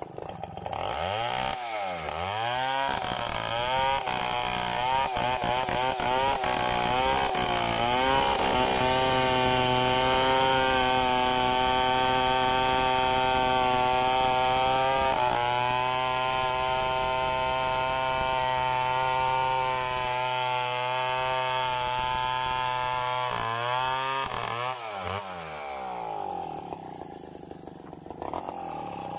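Two-stroke TECOMEC chainsaw revved in several bursts, then running steady under load as it rips lengthwise through a coconut log. Near the end the engine speed drops and it falls back to a quieter idle.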